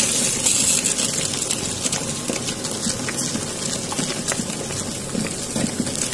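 Tabletop stone wet grinder running, its rotating drum and roller stone churning thick urad dal batter with a steady grinding noise and scattered small clicks.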